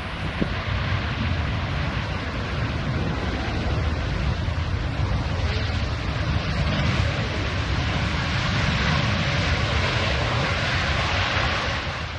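Jet airliner's engines heard close by as a steady, loud roar of noise that holds for the whole stretch, as the aircraft passes on takeoff or landing.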